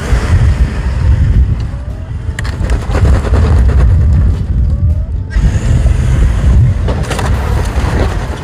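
Off-road 4x4 vehicle's engine running with a heavy low rumble on a rocky trail, with a few sharp knocks and clatters.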